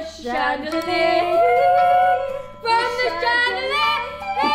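A girl singing loudly in a wavering, warbling voice, with held notes and pitch slides broken up into short phrases.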